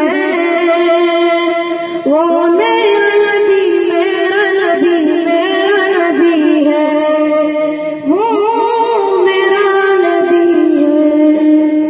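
Boys singing a naat, the Urdu devotional song in praise of the Prophet, in long melodic phrases with held notes and sliding pitches.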